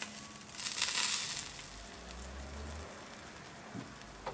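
Bacon-wrapped meatballs sizzling on the hot grill rack of a COBB grill as barbecue sauce is brushed on, with a louder burst of sizzle about a second in before it settles to a softer hiss.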